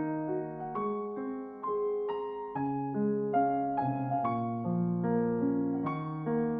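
Slow, gentle piano music: sustained notes and chords, with a new note or chord struck about once a second.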